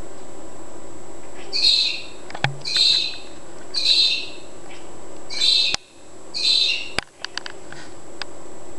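A loud bird calling outside: five short, noisy calls about one a second, with a few sharp clicks in between, then fainter calls near the end.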